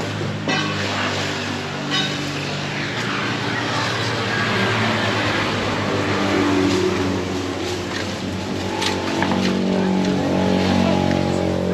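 Motor vehicles running on the road, an engine passing with its pitch shifting up and down.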